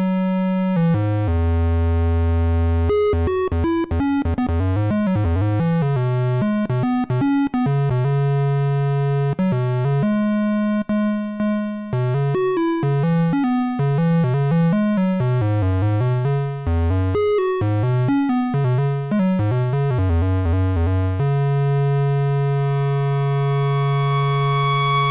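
DIY analogue monophonic synthesizer playing a fast line of short bright notes that jump around in pitch, then settling on one long held bass note whose bright upper tones swell in near the end.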